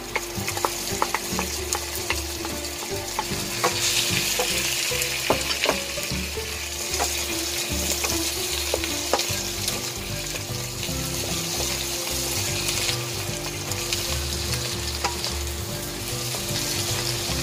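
Sliced canned mushrooms sizzling in butter and olive oil with sautéed onion and garlic in a nonstick wok, stirred with a wooden spoon that clicks and scrapes against the pan. The sizzle grows louder about four seconds in and eases off again later.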